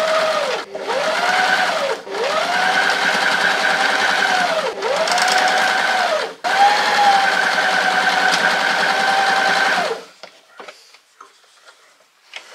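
Janome Sewist 725S electric sewing machine stitching in five runs with short pauses between them, the motor speeding up at the start of each run and slowing at its end; it stops about ten seconds in, leaving faint rustling as the fabric is handled.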